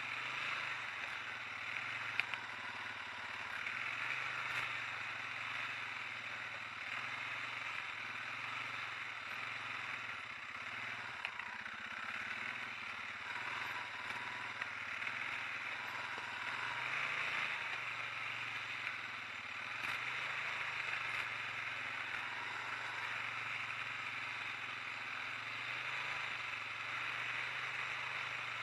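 ATV (quad bike) engine running steadily as it is driven slowly over rough ground, with a sharp knock about two seconds in.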